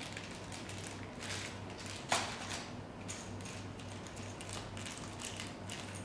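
Small clear plastic bag of printer parts being handled and opened, with scattered rustles and small clicks and one sharp click about two seconds in, over a steady low electrical hum.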